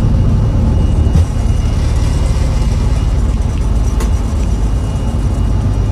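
Citilink Airbus A320's jet engines giving a steady low rumble as the airliner rolls out along the runway after touchdown.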